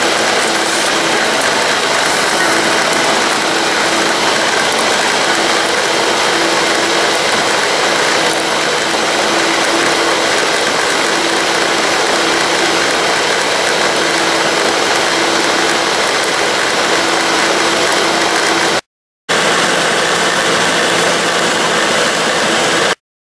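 Bosch 450 W stand mixer running steadily at speed, its beaters whisking eggs and sugar into a foam in a plastic bowl. The sound drops out twice briefly near the end.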